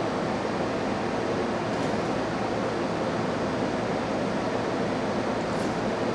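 Water churning and bubbling hard in a stainless-steel shrimp washing tank: a steady rushing noise.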